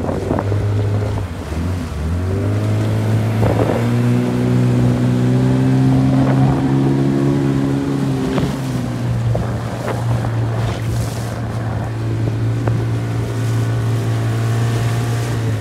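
Outboard motor of an inflatable boat running under way. Its note dips and climbs back up about two seconds in, then holds steady. Water noise runs underneath, with a few short slaps.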